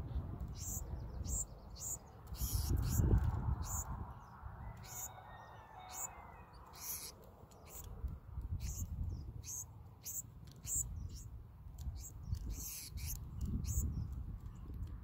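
Black-throated sparrows giving many short, high chip notes in quick, irregular series, over a low rumble that swells about three seconds in and again near the end.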